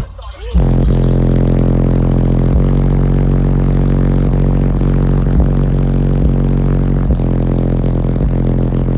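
Car-audio subwoofers, four 12-inch DC Audio Level 2s driven by a Skar RP2000 amplifier, playing a long, steady low bass note at high volume. The bass cuts out for about half a second at the start and then holds on.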